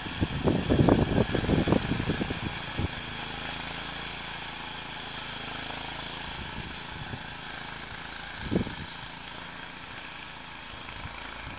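Simplicity Landlord garden tractor's engine running steadily as the tractor works through deep snow. A cluster of low knocks in the first three seconds and a single knock about eight and a half seconds in.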